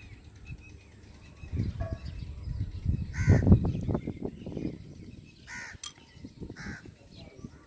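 A crow cawing three times: once about three seconds in, then twice more a couple of seconds apart. Underneath, low bumping and rustling come and go.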